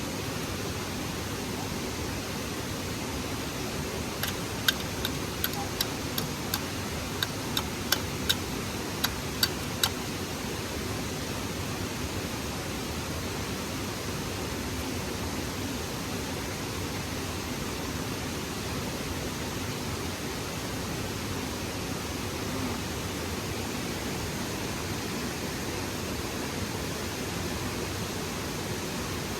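Steady rush of flowing water from a stream and waterfall. Between about four and ten seconds in, a quick run of a dozen or so sharp clicks or knocks.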